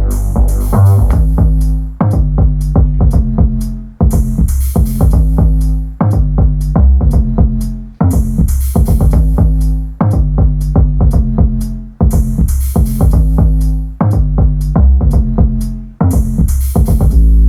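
Electronic music with a drum-machine beat and heavy deep bass, played through a Klipsch Cinema 400 2.1 soundbar and its subwoofer. The loop repeats every two seconds.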